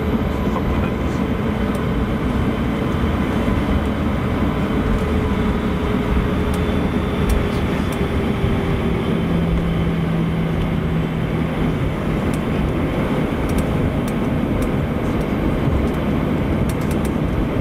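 Steady cabin noise of an Airbus A321-200 taxiing, its CFM56-5B engines at idle: an even rumble and hiss, with a low hum that comes in about halfway through.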